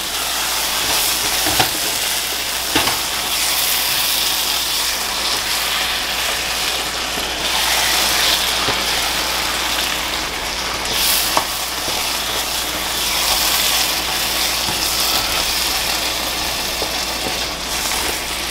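Crab curry sizzling in a pan on a hot stove as it is stirred with a wooden spoon, the drumstick leaves just mixed in. Three sharp knocks of the spoon against the pan, the first two close together near the start and one about halfway.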